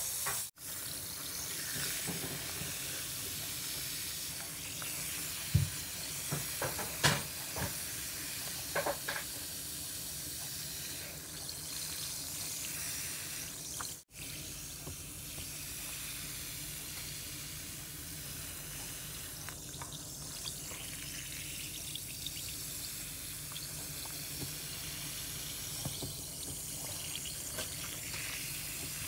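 Fizz bomb dissolving in a bowl of water, giving a steady fizzing hiss while hands swish and rub it in the water. A few short, louder splashy sounds come between about six and nine seconds in.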